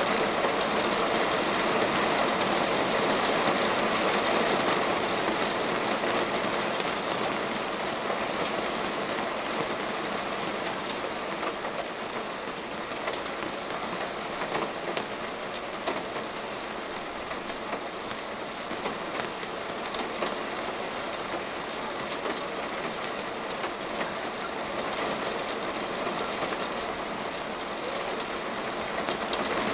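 Steady heavy rain falling, a dense, even hiss of drops with no let-up.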